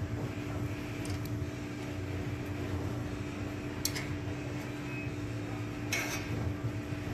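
Steady low background hum with a held tone. A few faint clicks of metal come at about one, four and six seconds in, as the valve cover bolts on an air-cooled VW engine are turned in by hand.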